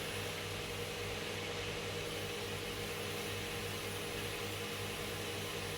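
Steady machine hum with an even hiss underneath, unchanging throughout.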